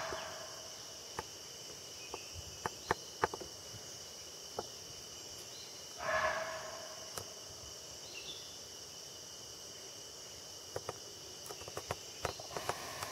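Indian muntjac (barking deer) giving one short, sharp alarm bark about six seconds in, with the tail of an earlier bark at the very start: the deer's alarm call on sensing a tiger. A steady high insect drone and scattered faint ticks run underneath.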